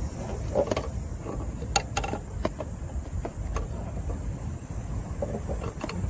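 Scattered sharp clicks and taps of a metal tool against the accessory belt and tensioner bracket in a car engine bay, with the engine off, over a low steady rumble.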